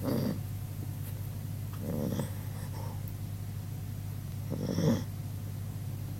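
A 16-year-old dog snoring in its sleep, as loud as a person: three snores roughly two to three seconds apart, the last one loudest.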